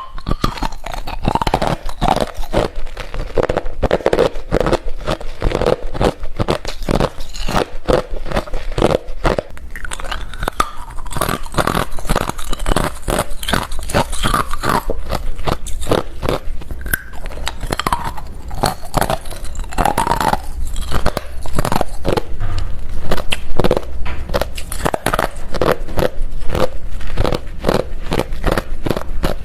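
Close-up crunching of hard refrozen crushed ice being bitten and chewed, a dense, unbroken run of sharp crunches.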